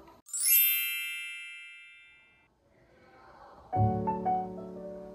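A bright sparkling chime rings out about half a second in, a quick run of high notes settling into a ringing tone that fades over about two seconds. Soft piano music starts near the end.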